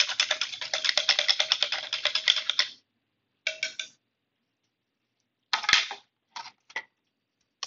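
A dough whisk stirring starter and water in a bowl, its wire loop clicking rapidly against the bowl's side with a faint ringing tone for about three seconds. Then it stops, followed by a few short clinks and taps, one sharp knock just before six seconds.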